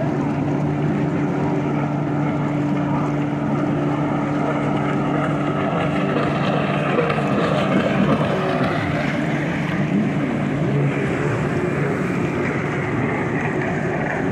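Racing jet skis running at speed across the water, their engine whine rising and falling as they pass. A steady low engine hum runs underneath for about the first half, then fades.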